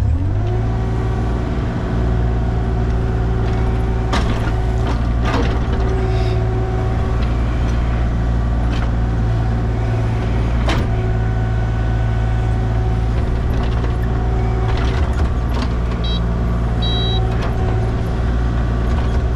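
Excavator engine revving up and running steadily at high revs while backfilling the tank hole, with several sharp metallic clanks and a few short high beeps near the end.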